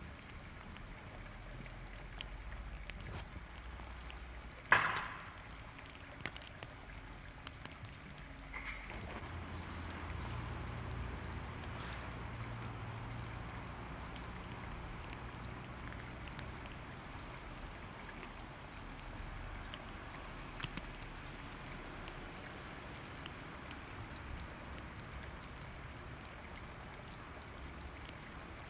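Steady low hum and noise of a stationary JNR EF64 electric locomotive standing in its depot. A single sharp clank with a short ringing tail comes about five seconds in, and the low hum grows stronger a few seconds later.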